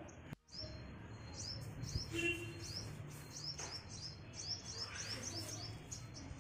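Small birds chirping in a steady run of short, high notes, several a second, over a low steady hum. The sound drops out for a moment about half a second in, and there are a couple of soft paper rustles in the middle.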